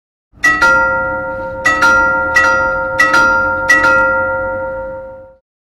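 A metal bell struck in five quick double strikes, one pair roughly every 0.7 s, each ringing on with several steady tones and fading out after the last.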